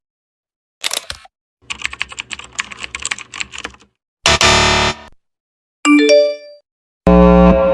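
A string of separate short sound effects with brief silences between them: a quick hit, about two seconds of rapid clicks like keyboard typing, a loud noisy burst, a few short ringing tones, then a loud low pitched sound starting near the end.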